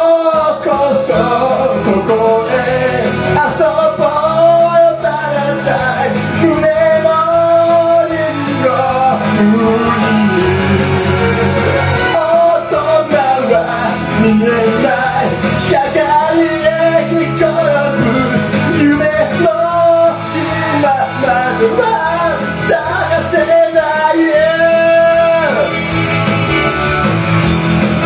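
A man singing loudly into a handheld karaoke microphone over a rock backing track with guitar. His voice stops a few seconds before the end while the backing track plays on.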